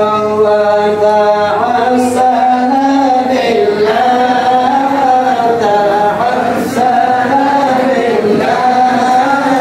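A group of men chanting an Islamic devotional Maulid chant in unison, holding long notes that slide slowly up and down.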